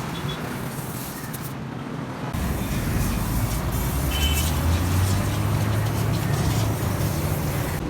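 A motor vehicle's engine running, its low drone coming in about two seconds in and growing stronger, over a steady noisy background.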